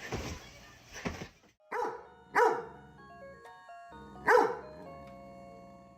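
A dog barking about four times, the two loudest barks about two and a half and four and a half seconds in, each dropping in pitch. A simple chiming tune plays between the barks.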